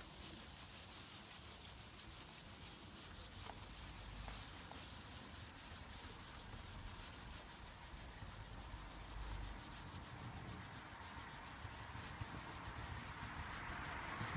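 Graffiti-removal wipe being rubbed quickly back and forth over a tagged surface: a faint, continuous scratchy scrubbing made of many short strokes, growing a little louder near the end.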